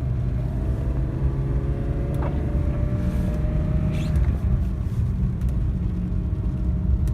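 BMW E36 M3's straight-six engine pulling under throttle in second gear, heard from inside the cabin with a steady low rumble of road noise. The drivetrain rattle, from a failing centre support bearing, is not showing here.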